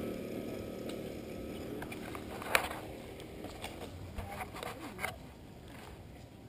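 Mountain bike riding over a rough dirt trail: rumbling tyre and ride noise with sharp knocks and rattles as the bike hits bumps, the loudest about two and a half seconds in, several more over the next few seconds.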